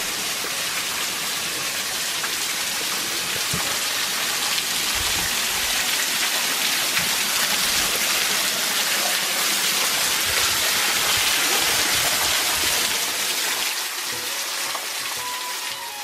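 Waterfall spattering and pouring onto rocks: a steady rushing hiss of falling water, easing a little near the end.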